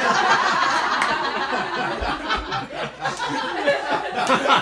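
A small audience laughing loudly together, several people at once, with some talking mixed in.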